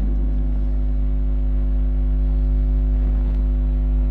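Steady electrical mains hum with a stack of even overtones, loud and unchanging, carried through the microphone and sound system.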